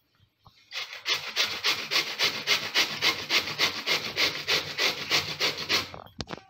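Bottle gourd grated on a stainless-steel box grater: rapid, even rasping strokes, about four a second, starting about a second in and stopping near the end, followed by one short click.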